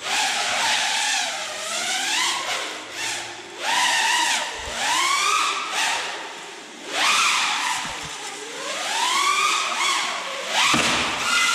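FPV quadcopter's brushless motors and propellers whining, the pitch sweeping up and down in repeated surges as the throttle is punched and eased.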